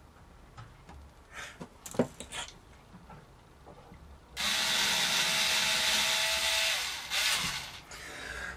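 Small cordless drill running for about two and a half seconds as it bores a side-dot marker hole into the edge of a guitar fretboard, its whine dropping as the motor spins down at the end. A few light knocks and handling clicks come before it.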